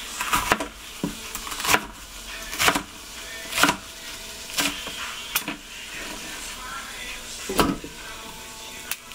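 Chef's knife chopping crosswise through bok choy stalks onto a plastic cutting board: sharp chops about one a second, with a longer pause near the end.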